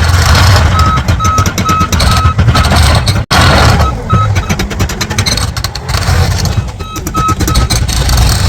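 Heavy construction equipment running, a deep diesel engine rumble with rough clattering, while a reversing alarm beeps in short runs of about three beeps a second. The sound drops out for an instant about three seconds in.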